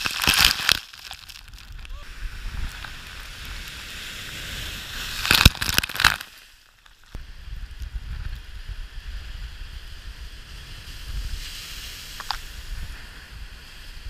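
Strong wind buffeting the microphone, with lake waves breaking against the shoreline. Near the start and again about five seconds in come loud splashy bursts of freezing spray striking the camera and jacket. After a brief drop, a steady low wind rumble and surf carry on.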